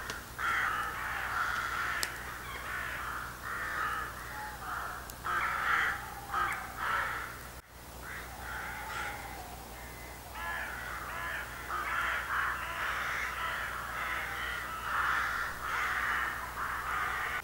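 A flock of crows cawing, with many harsh calls overlapping; the calling thins out around the middle and then builds again.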